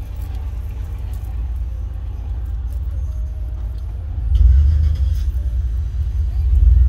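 Low rumble of a vehicle heard from inside its cabin, growing louder about four seconds in and again near the end.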